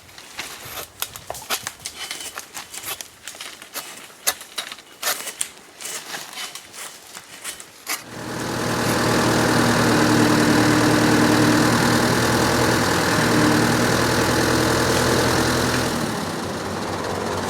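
Scattered crackling clicks, then an engine starts about eight seconds in and runs steadily.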